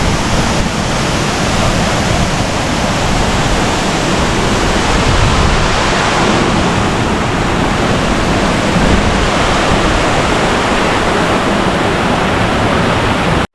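Waterfall close by: a loud, steady rush of falling water that cuts off suddenly at the very end.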